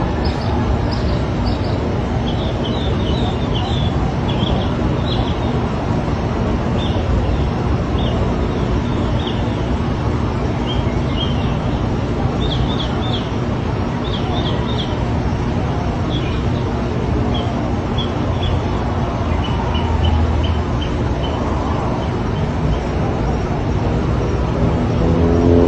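Birds chirping in quick runs of two to four short, high notes, repeated every second or so, over a steady rushing noise like distant traffic.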